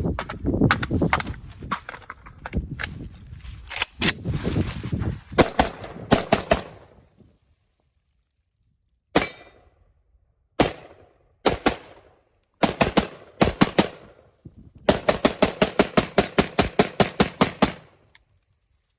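Zastava M70 AK-pattern rifle firing semi-automatic. Shots come irregularly at first, then one or two at a time after a pause of about two seconds, and near the end a fast string of about six shots a second as the magazine is emptied.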